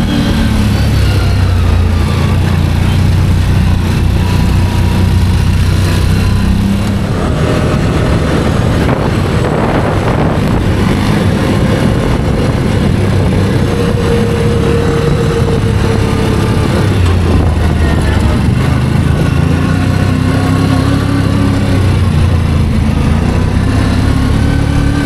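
ATV engine running under way, its pitch rising and falling as the throttle and speed change, with a steady rush of wind and terrain noise.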